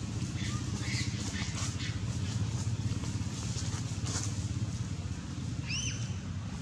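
Steady low rumble of a motor vehicle engine, with faint rustling and, near the end, one short high arched squeak.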